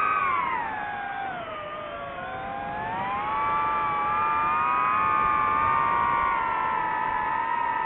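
FPV quadcopter's motors and propellers whining. The pitch drops over the first two seconds as the throttle eases off, climbs again by about four seconds, and then holds nearly steady.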